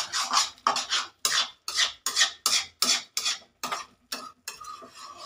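Metal spatula scraping and stirring cooked potatoes and spinach in a metal kadai, in a quick run of separate strokes about two or three a second.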